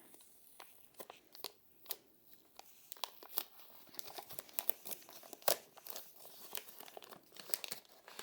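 Box packaging being opened and unwrapped by hand: irregular crinkling, crackling and tearing with small sharp clicks, busier from about three seconds in.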